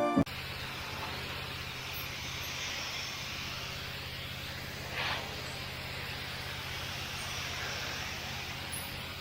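Electric pressure washer running: a steady motor hum under the hiss of the water spray, with a brief louder swell of spray about five seconds in. Background music cuts off at the very start.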